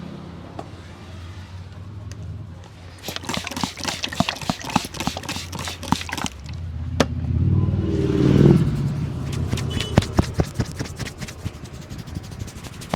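Quick, sharp hand taps and slaps of a barber's head massage, several a second, in two runs. In the middle a low rumble swells and fades.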